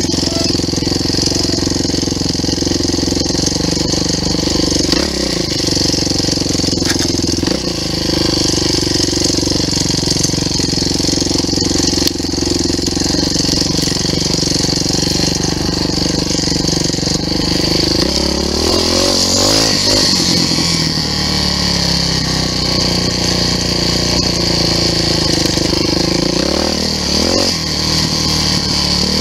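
Engine of an off-road vehicle running steadily under way, its revs dipping and picking back up briefly several times.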